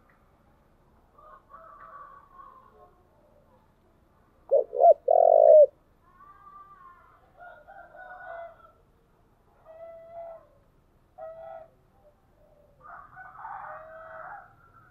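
Spotted dove cooing: one loud, low call a little over a second long about four and a half seconds in, with fainter calls coming and going through the rest. It is a decoy dove's call, used to stir wild doves to answer.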